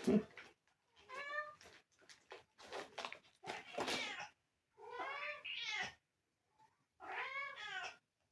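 Domestic cat meowing about four times, short calls each rising and falling in pitch with pauses between: begging for treats.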